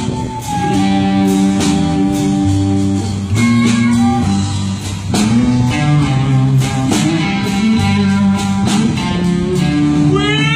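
Guitar-led blues music: held guitar notes over a steady beat, with a note sliding up in pitch near the end.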